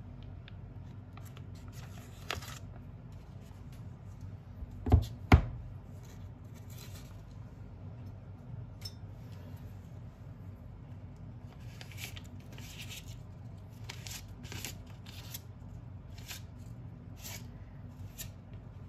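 Kitchen handling sounds while a sandwich is being made: two sharp knocks about five seconds in, then scattered light clicks, rustles and scrapes, over a low steady hum.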